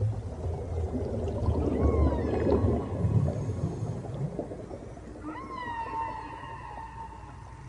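A low rumble, then about five seconds in a long pitched call, whale-like, that rises and then holds steady with several overtones. Fainter short gliding tones come a couple of seconds earlier.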